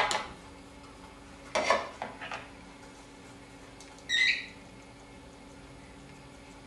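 Kitchen handling sounds as flour is tipped from a container into a mixing bowl: a sharp knock of the container against the bowl at the start, a short rustle of pouring flour about a second and a half in, then a brief high squeak about four seconds in as the container is set down.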